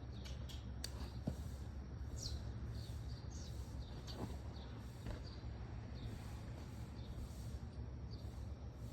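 Small birds chirping now and then, short high calls scattered through, over a steady low background rumble.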